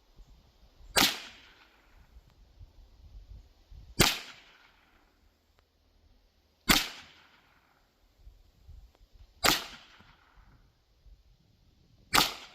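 Five shots from a Huben GK1 Mini .30 calibre air pistol, fired at full power about every three seconds, each a sharp crack with a short fading tail.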